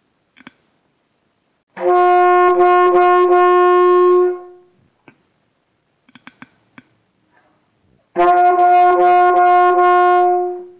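Alto saxophone holding one note for about two and a half seconds, tongued several times so the tone dips briefly without stopping: the "the, the, the" tonguing articulation. After a pause with a few faint clicks, the same tongued note is played again near the end.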